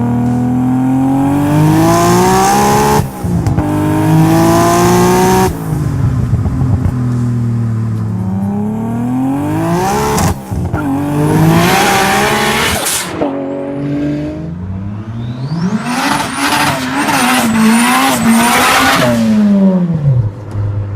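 Turbocharged car engine pulling hard through the gears, its pitch climbing and dropping at each of several upshifts, with a hissing flutter at the shifts. Near the end comes a fast run of fluttering chirps, with short rising whistles, from the turbo. Then the engine's pitch falls away.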